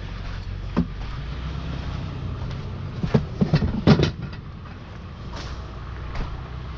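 A vehicle engine idling steadily with a low rumble. About three to four seconds in come a handful of sharp knocks.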